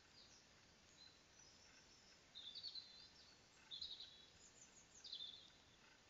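Songbirds singing faintly over a steady background hiss: three short bursts of high, quick chirping, about two and a half, four and five seconds in.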